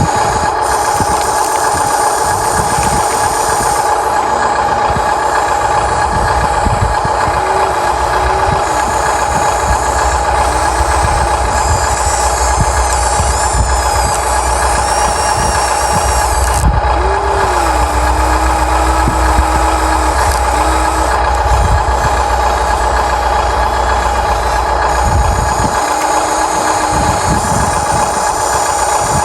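Huina 1593 radio-controlled excavator working, with a steady whine from its motors and gearing throughout. Short shifts in pitch and a low rumble come and go as the arm and bucket move under load.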